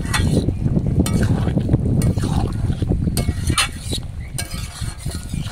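Thick curry simmering in a steel karai while a metal spatula stirs it, with scattered clicks and scrapes of the spatula against the pan over a low rumble that eases off after about four seconds.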